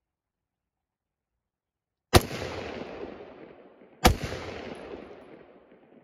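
Two single shots from a Kodiak Defence WK180C semi-automatic rifle in 5.56 mm, about two seconds apart. Each sharp crack is followed by a long echo that fades over about two seconds among the trees.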